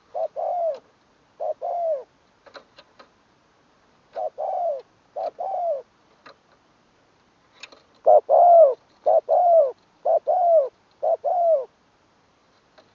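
Spotted dove cooing: short, arched coo notes in pairs and threes, with a louder run of about seven coos starting about eight seconds in. A few faint clicks fall between the coos.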